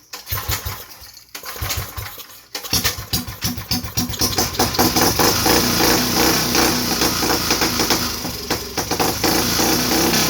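Mini bike's small single-cylinder engine being pull-started: a couple of cranking pulls, then it catches about two and a half seconds in and keeps running, getting louder.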